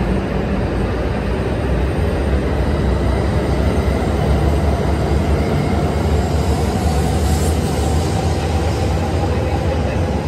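E5 series Shinkansen bullet train moving slowly along the platform: a loud, steady, low rumble from the passing cars.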